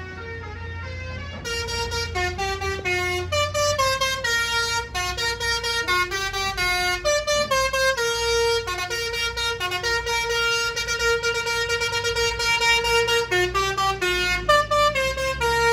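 Background music: a reedy, horn-like wind-instrument melody of quick stepping notes.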